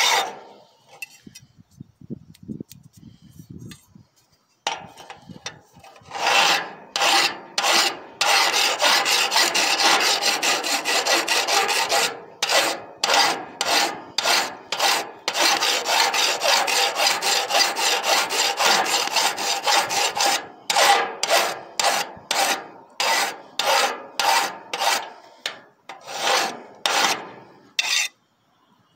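Hand file rasping along the edge of a steel knife blank in repeated strokes. It is quiet at first. The filing starts about five seconds in, runs as a quick continuous stretch for a few seconds, then goes on as separate strokes about two a second and stops just before the end.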